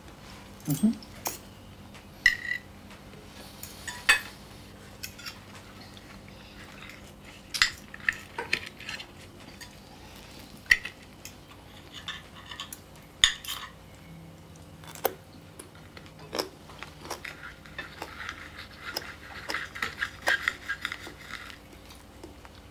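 Knife and fork clinking and tapping against a dinner plate in scattered sharp strokes, with a longer stretch of scraping across the plate near the end.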